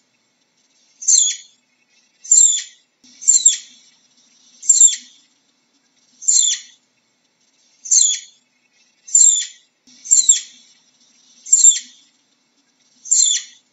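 Flying squirrel giving a string of about ten short, high-pitched chirps, each sliding down in pitch, spaced roughly a second apart.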